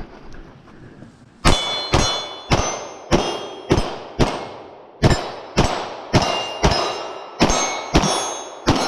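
A string of about fourteen gunshots fired roughly two a second, starting about a second and a half in, each with a short metallic ring from steel targets being hit.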